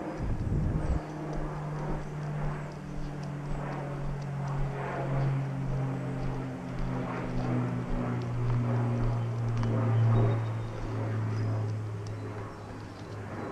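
A distant engine droning steadily, its pitch slowly falling over about twelve seconds, with gusts of wind on the microphone near the start.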